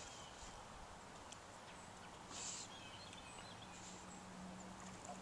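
Quiet lakeside ambience: a few faint bird chirps, a short hiss about two and a half seconds in, and a faint steady low hum that starts about a second and a half in.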